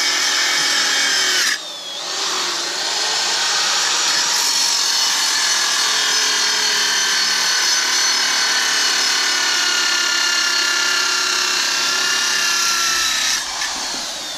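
Angle grinder with a cutoff wheel cutting through a steel coil spring from a Nissan 300ZX: a steady high whine with grinding. About a second and a half in the grinder stops, its whine falling, then it starts again and cuts steadily until it winds down near the end.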